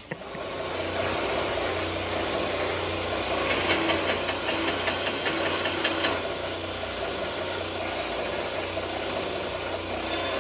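A motor-driven machine running steadily with a low hum and a hissing rush, louder from about three seconds in to six seconds and again near the end.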